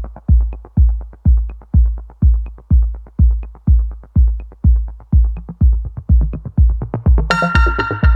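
Electronic dance music with a steady, heavy kick drum at about two beats a second. A bright synthesizer layer comes in about seven seconds in.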